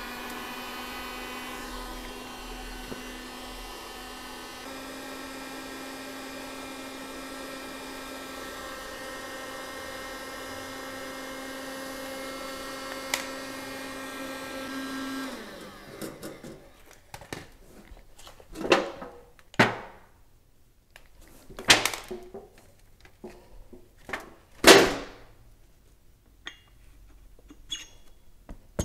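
Heat gun running on high, a steady fan-motor whine, heating the steel motor shaft coupler; it cuts off a little past halfway with a short wind-down. Then several sharp knocks and clanks, the loudest near the end, as the hot coupler is fitted onto the electric motor's shaft.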